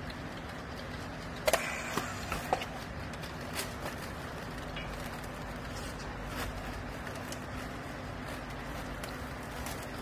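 Steady low machine hum, with a cluster of sharp clicks and knocks about one and a half to two and a half seconds in, and a few fainter ticks later, from plastic strapping and a handheld strapping tool being worked around a compressed rag bale.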